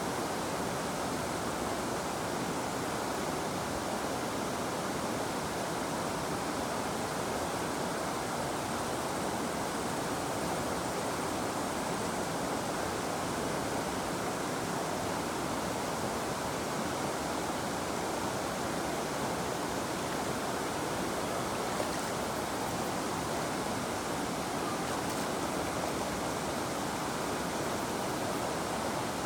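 A river flowing: a steady, even rush of running water.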